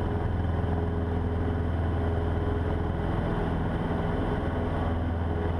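Cessna 150's four-cylinder Continental O-200 engine and propeller running at full takeoff power, a steady drone heard from inside the cabin during the takeoff roll.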